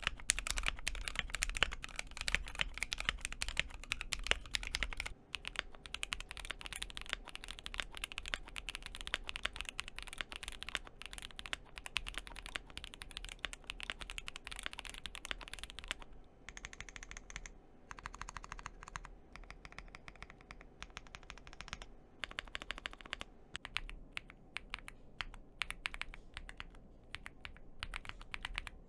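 Mechanical keyboards being typed on fast and continuously, a steady stream of key clicks. About five seconds in, the sound changes as the test moves from a GMMK Pro to a Cidoo V65 65% keyboard, heard in stock and modded form, and it changes again near the end.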